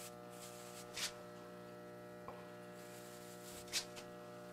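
Steady low electrical mains hum, with two brief soft rustles, one about a second in and one near the end.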